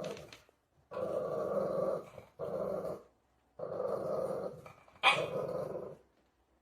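Dog growling in a series of rough growls about a second long each, with short pauses between them; the last growl starts with a sharp bark.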